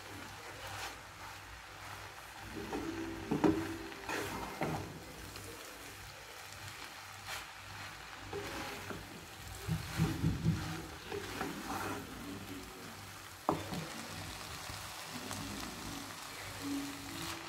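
A spatula stirring and tossing rice vermicelli in a nonstick frying pan, with light sizzling: irregular scrapes and knocks against the pan, and one sharp knock about 13 seconds in.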